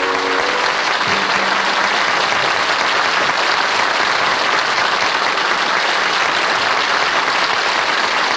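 Audience applauding steadily and loudly, with the song's final held organ chord fading out in the first half-second.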